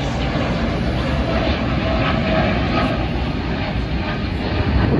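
Twin-engine widebody jet airliner's engines at takeoff power as it climbs out: a steady rumble with a faint whining tone.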